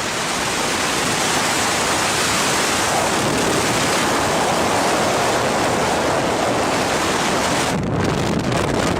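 Strong wind blasting across the microphone: a loud, steady rush of noise that briefly thins about eight seconds in.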